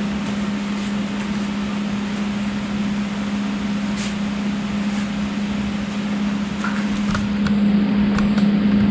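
Window air conditioner running with a steady hum and rush of air, with a few faint clicks about four seconds in and again near the end.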